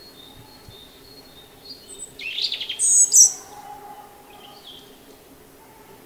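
European robin singing: one short phrase of rapid, high, thin notes about two to three seconds in, with fainter high whistles before and after.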